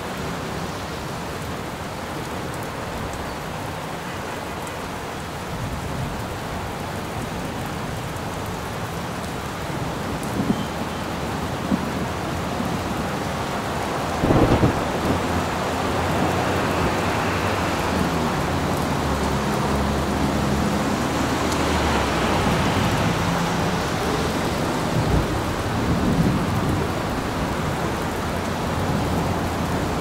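Steady heavy rain with thunder: a sharp crack about halfway through, followed by low rolling rumbles through the second half.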